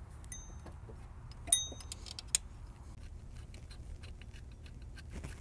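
Small metal clinks and ticks as a steel bolt is handled and hand-threaded into the alternator's mounting bracket; the loudest, a sharp ringing clink, comes about a second and a half in, with fainter ticks after.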